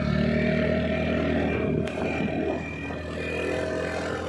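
Motorcycle engine running steadily while riding, easing off slightly about two and a half seconds in. A single sharp click comes about two seconds in.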